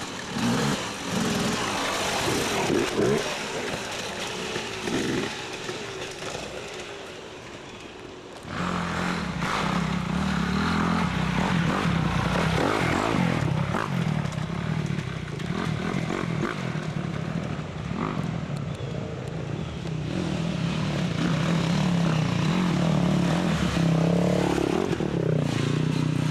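Dirt bike engines running. About eight seconds in, a nearby engine comes up loud and runs on at a steady pitch.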